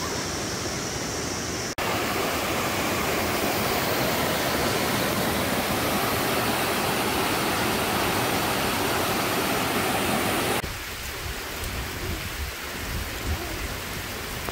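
Steady hiss of falling rain, cut twice. A short stretch comes first, then a louder, fuller stretch from about two seconds in, then a quieter stretch from about ten and a half seconds in with an uneven low rumble beneath.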